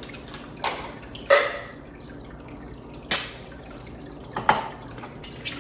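Water dripping and splashing at the aquarium, four separate sharp splashes over a faint steady background, the loudest about a second in.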